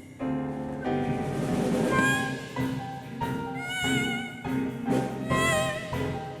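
Korean traditional music (gugak) ensemble performing: a melody with wide, wavering vibrato over held lower notes, in short phrases.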